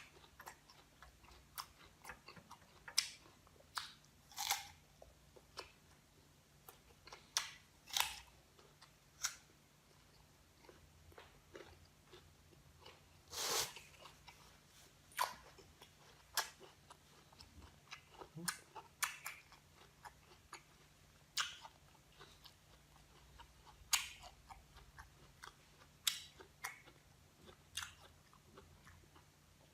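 Crunchy chewing of raw green guava: irregular crisp crunches and clicks of the firm fruit being bitten and chewed, with one longer, louder crunch about halfway through.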